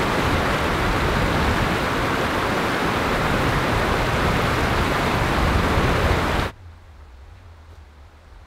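Loud, steady rush of a fast mountain stream tumbling over rocks, which cuts off suddenly about six and a half seconds in, leaving only a faint low hum.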